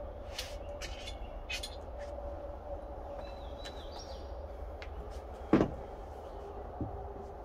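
Wooden knocks and clunks as a drill and a timber frame are handled on a plank deck: a couple of light taps near the start, a sharp loud knock about five and a half seconds in and a softer one a second later, over a faint steady hum.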